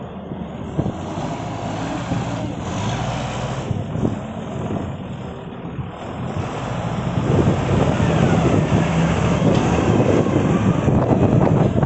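Isuzu 6BG1 six-cylinder diesel engine of a 6-tonne Dalian CPCD60FA forklift running as the truck drives and turns. It grows louder about seven seconds in as the forklift comes closer.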